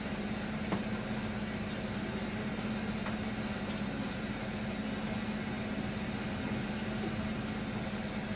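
Steady low hum over a hiss of room noise, with one small tap just under a second in.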